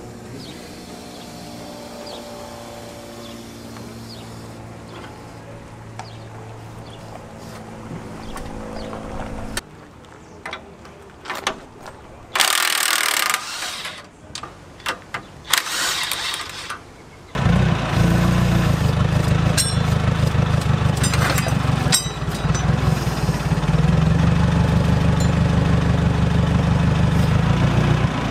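A forklift engine starts running steadily at a low pitch a little past halfway through and is the loudest sound. Before it come short bursts of hissing and clanking from shop tools, and at the start a stretch of steady tones.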